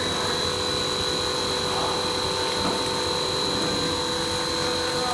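PVC blown-film machine running: steady mechanical noise with a constant high whine and a lower hum.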